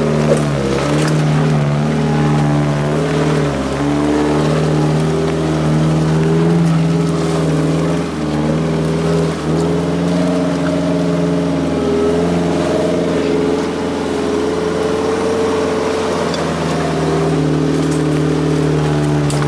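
Mitsubishi Pajero Sport's engine running steadily at low revs while driving on an off-road trail, the engine note dipping briefly twice about eight and nine seconds in.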